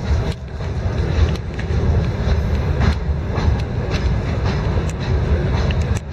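Railway flatcars rolling slowly past: a low rumble of the wagons with irregular clicks and knocks from the wheels on the rails.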